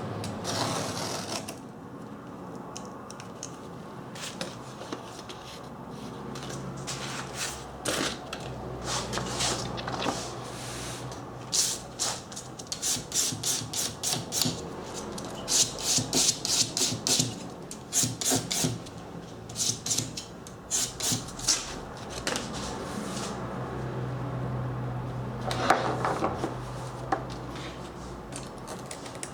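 Hand scraping strokes on a workpiece, in quick runs of about four strokes a second, over a steady low hum.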